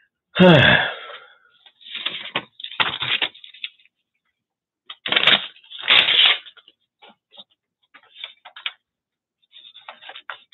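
Paper scraps and tools being handled on a cluttered collage worktable: a loud sound that falls in pitch about half a second in, several rustling, clattering bursts in the next few seconds, then lighter clicks and ticks as the scissors are picked up and a magazine page is pulled out.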